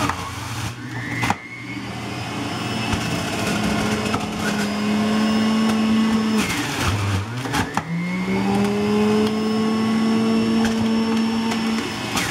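Breville electric juicer's motor running with a steady whine as produce is pushed down the feed chute. About six seconds in the pitch drops away, then climbs back up and holds.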